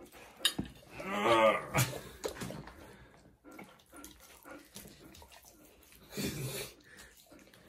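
Alaskan Malamute licking and chewing raw meat held in a person's hands, with wet smacking and slurping. A short vocal sound comes about a second in.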